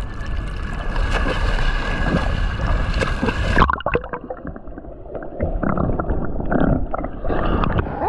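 Sea water splashing and sloshing against a GoPro's waterproof housing at the surface. About three and a half seconds in, the hiss cuts off and the sound turns muffled as the camera goes under, with underwater gurgling and bubbling.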